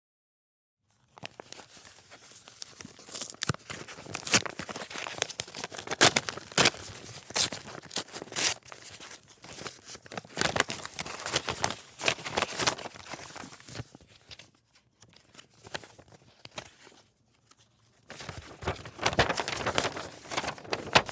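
A paper letter from the mail being opened, with dense paper tearing and crinkling starting about a second in. It eases to a softer rustle in the middle, then grows louder again and ends with a sharp crack.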